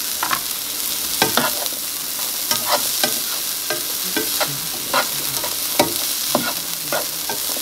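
Chopped broccoli and carrots sizzling in butter in a nonstick skillet, stirred and pushed around with a plastic slotted spatula that scrapes and clicks against the pan again and again.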